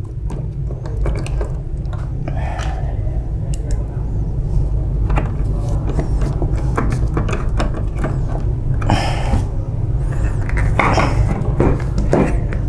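Scattered clicks and clinks of a screwdriver and small metal copier parts being handled on a bench, with a couple of louder scraping rattles near the end, over a steady low hum.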